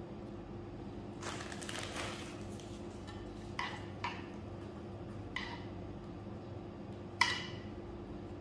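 Light clinks and taps of kitchenware, four in all, the sharpest near the end with a short ring, after a brief rustle about a second in. A steady low hum runs underneath.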